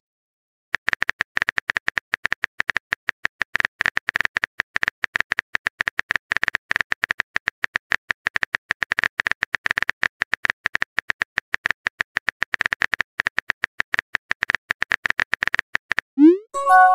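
Phone keyboard typing sound effect: rapid, uneven clicks for about fifteen seconds while a text message is being written. Near the end a short rising chime sounds, the alert for a new chat message.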